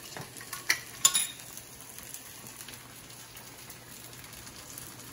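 A few sharp clicks and knocks about a second in, then a steady soft hiss of creamy mushroom stew simmering in a pan on a gas stove.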